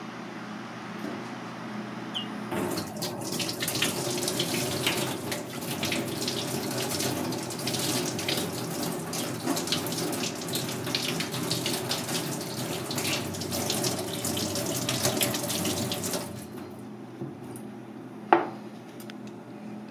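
Kitchen tap running into a stainless steel sink while shellfish meat is rinsed by hand under the stream. It starts about two and a half seconds in and stops a few seconds before the end, followed by a single sharp click.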